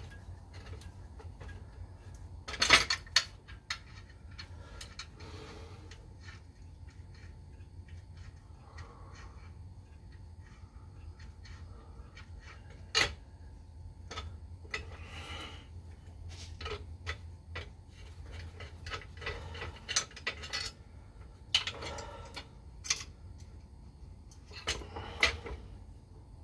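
Scattered metallic clinks and knocks of hand tools and parts being handled, one sharp knock about three seconds in and another about halfway, over a faint steady low hum.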